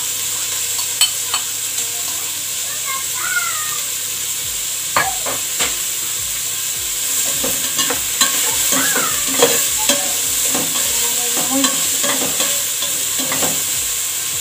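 Carrots and sliced hot dog sizzling in hot oil in an aluminium pot while a utensil stirs them, clicking and scraping against the pot. A steady sizzling hiss with frequent sharp knocks and a few short squeaks.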